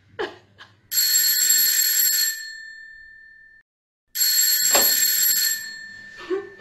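Doorbell ringing twice, about three seconds apart: each ring is a bright, high bell tone that starts sharply and dies away over a second or two.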